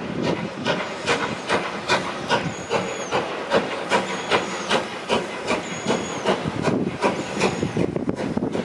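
1948 LNER Thompson B1 4-6-0 steam locomotive 61306 Mayflower pulling away from a standstill, its exhaust chuffing at a slow, even pace of about two to three beats a second over a steady steam hiss. A short high squeak recurs every second or two.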